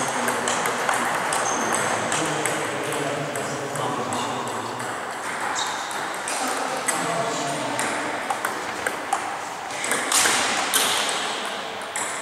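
Table tennis balls clicking sharply off bats and tables in irregular runs of hits, from rallies on more than one table. Background voices chatter underneath.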